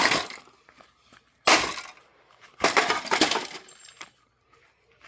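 A printer being smashed apart: sharp crashes of breaking plastic and glass, one right at the start, one about a second and a half in, and a longer clattering crash around three seconds in.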